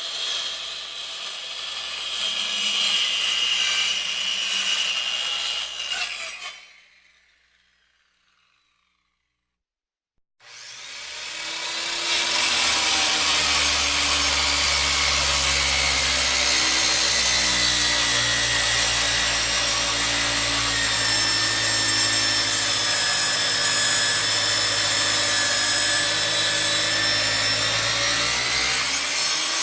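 Power tool running with a steady whine, which winds down and stops about seven seconds in. After a couple of seconds of silence it starts again, comes up to speed and runs steadily on.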